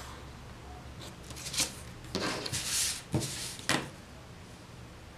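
Ruler and paper or cardboard being handled on a tabletop: a light tap, a brief scraping rustle, then two sharp knocks.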